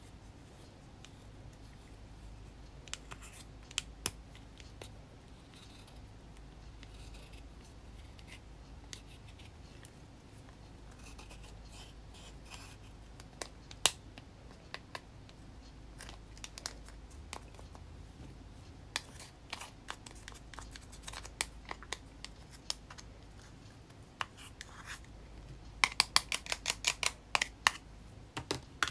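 Pressed makeup powder scraped out of a clear plastic compact with a plastic spatula: scattered scratches and sharp clicks of plastic on plastic, turning into a quick run of clicks near the end.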